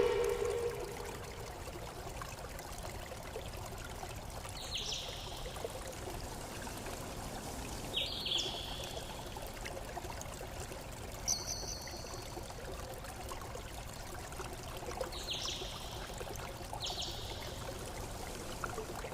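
Small stream running steadily, with short high bird chirps every few seconds.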